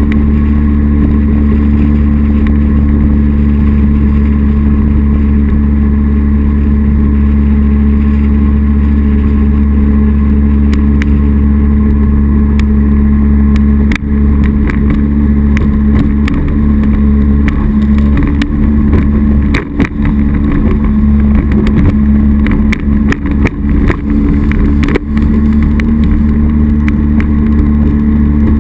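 2001 North River Sportster jet boat running upriver under power, its 240 Sport Jet giving a loud, steady engine note. In the second half, as the boat crosses faster, rippled water, the note dips and crackles briefly several times.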